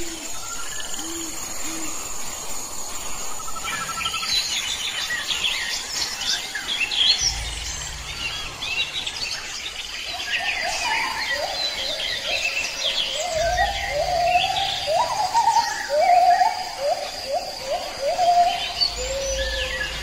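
Several birds singing and calling outdoors. Many quick high chirps come in about four seconds in, and from about halfway a run of lower, repeated upward-sliding notes joins them.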